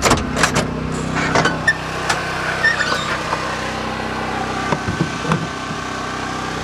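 A scatter of sharp knocks and clunks from handling gear in a bus's under-floor bay: a cluster at the start, more about a second and a half in, and again near five seconds in. Under them runs a steady low mechanical hum.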